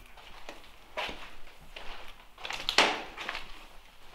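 Footsteps crunching on grit and broken debris on a concrete floor, a few uneven steps, the loudest about three seconds in.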